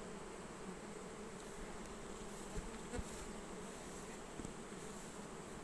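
A mass of honeybees buzzing in a steady, even hum as they forage on flowering sunflowers: the busy sound of a strong nectar flow. A couple of faint taps come near the middle.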